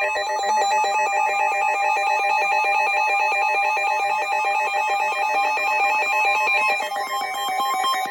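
Emergency Alert System two-tone attention signal: a loud, steady, harsh dual tone that sounds for about eight seconds. It announces an emergency alert, here a tornado warning, and cuts off just as the spoken message starts.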